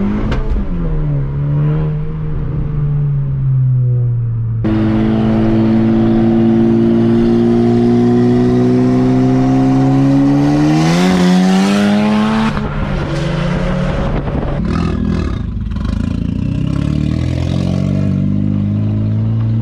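Turbocharged 2.0-litre four-cylinder of a 2019 Honda Civic Type R, running with the exhaust removed after a catless downpipe. A lower engine note gives way suddenly to a loud, raspy full-throttle pull whose pitch climbs steadily and then faster. About twelve seconds in the engine lets off into a patch of sharp crackles, then settles to a steadier drone near the end.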